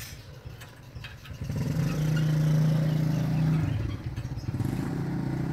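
A motor vehicle's engine running close by: it swells about a second and a half in, holds a steady low note for about two seconds, then drops back and keeps running more quietly.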